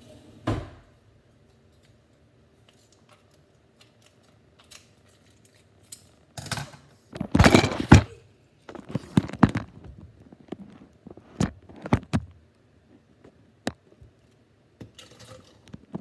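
Handling noise from the phone that is filming: loud rustling and clattering close to the microphone as it is picked up and moved, then a string of scattered knocks and clicks. A single thud comes about half a second in.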